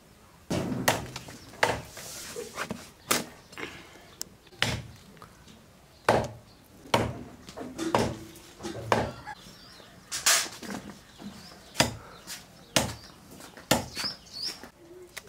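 Repeated chopping with a blade on a wooden block: a dozen or so sharp knocks, unevenly spaced about a second apart.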